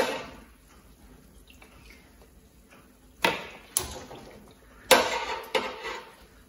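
Metal kitchen tongs clacking against the stainless-steel deep fryer and its basket about five times while fried dough pieces are lifted out. Each clack is followed by a short sizzle of the hot frying oil.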